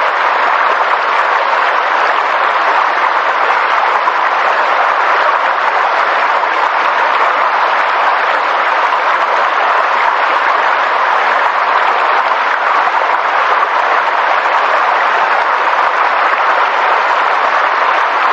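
Continuous, even rushing noise of a nature ambience, steady throughout with no distinct events.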